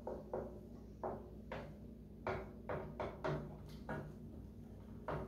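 Wooden spoon stirring onions in melted butter in a skillet, knocking and scraping against the pan in about ten irregular taps, over a faint low hum.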